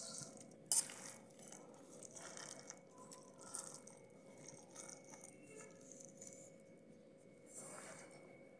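Faint wet squelching of hands kneading sliced onions through thick gram-flour batter in a steel bowl, with one sharp click about a second in.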